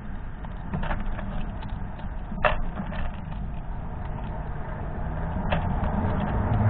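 A squirrel cracking sunflower seed shells close to the microphone: a few sharp cracks, seconds apart, over a steady low hum that grows louder near the end.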